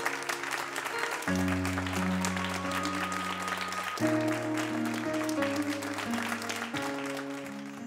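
An audience applauding over background music with sustained chords that change every second or two; the clapping thins out near the end.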